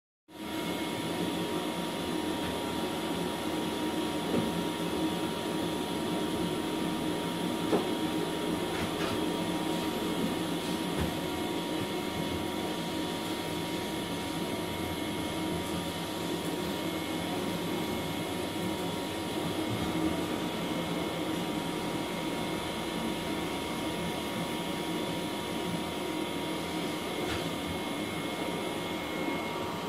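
A steady machine drone with constant whining tones over it, like a motor or fan running, with a couple of light knocks about four and eight seconds in.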